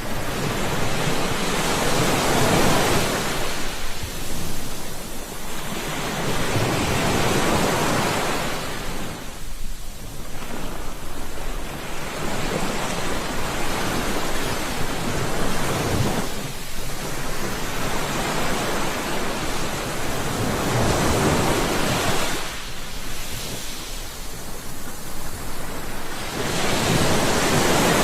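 Ocean waves breaking and washing ashore, the surf swelling and ebbing in slow surges about every five to six seconds.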